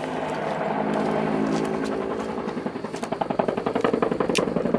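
Helicopter flying overhead, its rotor beating in a rapid pulse over the engine's whine; the beat grows louder and sharper in the second half as the helicopter draws closer.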